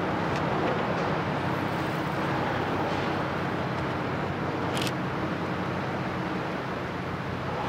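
Steady drone of boat engines: several low, even tones over a broad rumble. A brief sharp click comes about five seconds in.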